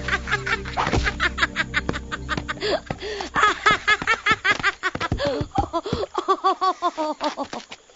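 A cartoon character's voice in a long fit of laughter: rapid runs of 'ha's that slow near the end into a few separate laughs falling in pitch. Background music is heard under the first few seconds.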